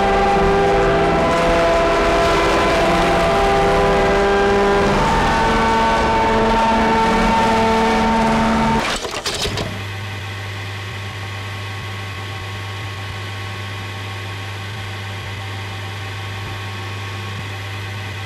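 Synthesizer drone music: held chords whose notes shift every second or two. It cuts off abruptly about nine seconds in with a brief crackle. A quieter steady low hum with hiss follows.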